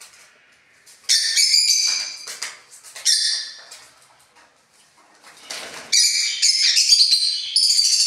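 A flock of peach-faced lovebirds chirping in high-pitched bursts, about a second in and again around three seconds, then chirping almost without a break from about six seconds on.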